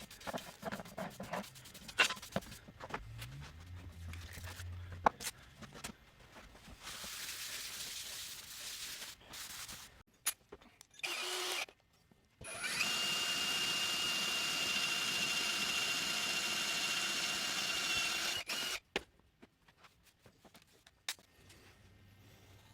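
A power drill runs steadily for about six seconds, with a constant whine, starting about halfway through and cutting off suddenly. Before it come scattered clicks and knocks of tools and parts being handled, and a few short bursts of the motor.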